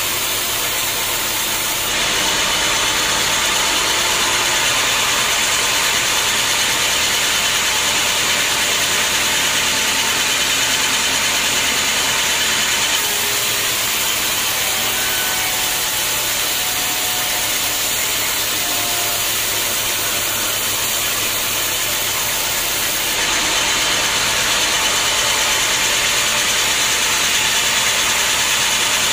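Band sawmill's blade ripping lengthwise through a teak beam, a steady hissing saw noise over the machine's running hum that grows louder about two seconds in.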